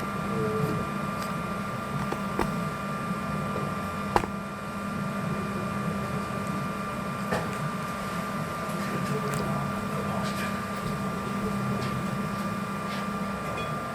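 Flashforge desktop 3D printer running mid-print: a steady whir of its fans and motors, with a few small clicks, the sharpest about four seconds in.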